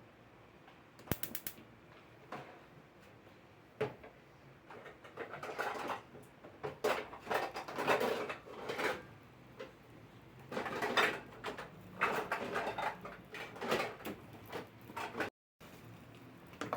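Kitchen handling noises: a quick run of clicks about a second in, a few knocks, then a long stretch of irregular clattering and scraping.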